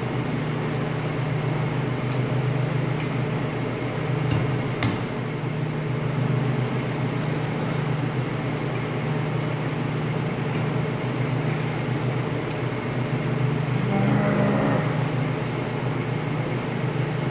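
Steady low mechanical hum of fan or air-conditioning machinery in the room. A few light metallic clicks sound about three and five seconds in as the band saw's wheel is handled on its shaft.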